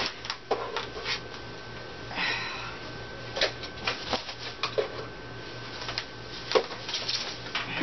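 Protective foam packaging being pulled and peeled off a new vinyl cutting machine: irregular rustling and crinkling with scattered sharp crackles.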